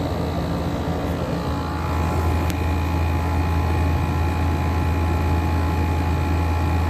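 Frigidaire 12,000 BTU window air conditioner running: its LG rotary compressor gives a strong steady hum under the rush of the fan, with several faint steady tones on top. The sound gets a little louder about two seconds in.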